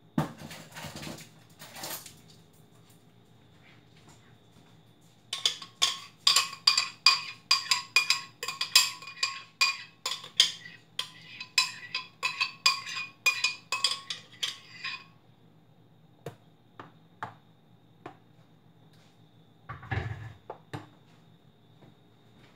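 A spoon knocking and scraping against a blender jar to empty out the mixture: a run of quick ringing taps, about three or four a second, for some ten seconds. A few single knocks follow, then a dull thump near the end.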